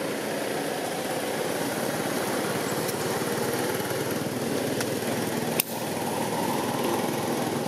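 A small engine running steadily, with one sharp click about five and a half seconds in.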